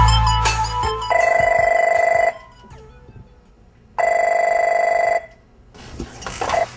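Electronic music fades out in the first second, then an electronic telephone rings twice, each ring a warbling tone about a second long, with about three seconds between them.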